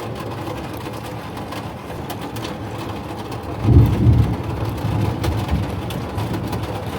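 Thunder: a sudden low rumble about halfway through that rolls on for a couple of seconds, over a steady background hiss.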